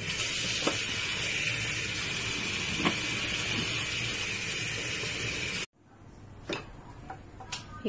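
Tap water running steadily into a plastic colander of blanched beef tail pieces in a steel sink as they are rinsed. It cuts off abruptly about two-thirds of the way through, followed by a few light knocks.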